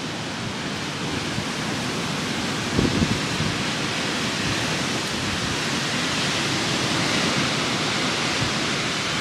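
Hurricane wind and rain rushing steadily, swelling a little louder over the seconds, with a gust buffeting the microphone about three seconds in.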